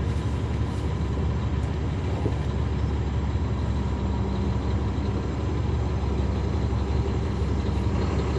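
Caterpillar C13 diesel engine of a 2009 NABI 40-foot transit bus running with a steady low drone, heard from the rear seats inside the bus.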